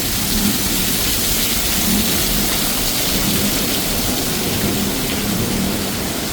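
Heavy monsoon rain falling steadily on the street, an even hiss with a low, uneven rumble underneath.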